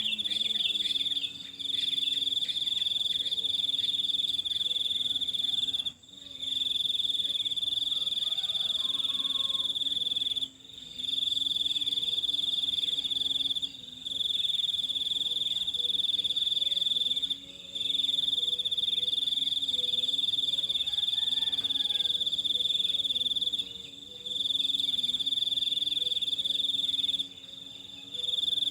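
Insects, cricket-like, trilling continuously at a high pitch, breaking off briefly every few seconds.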